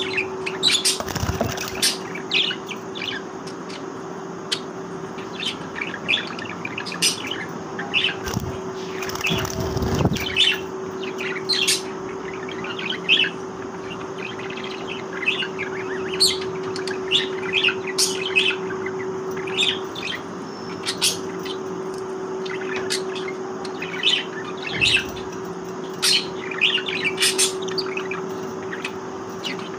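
Budgerigars chirping and chattering: many short, sharp chirps, several a second, over a steady hum.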